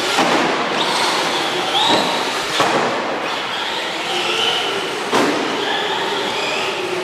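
Traxxas Rally 1/10-scale RC car's electric motor whining up and down with the throttle, the tyres scrabbling over the dirt. There is a sharp thump as it lands just after the start, and two more sharp hits about 2.5 and 5 seconds in.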